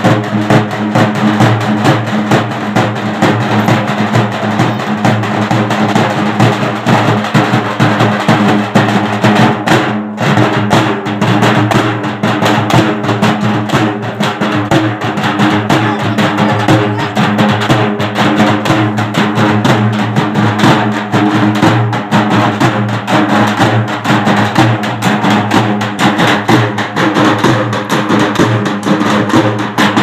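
Several dappu frame drums beaten with sticks in a fast, continuous rhythm, with a ringing drum tone under the strikes. It is the beat played for the trance (punakam) dance of Pochamma Bonalu.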